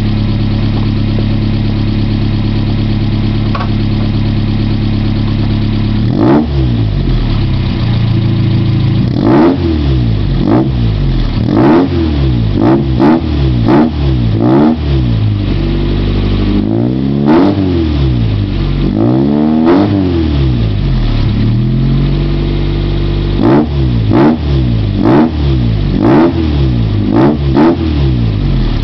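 Chevrolet Chevette 1.6 four-cylinder petrol engine through a dual-outlet exhaust. It idles steadily for about six seconds, then is revved in many quick throttle blips, each a rise and fall in pitch, with a brief return to idle partway through.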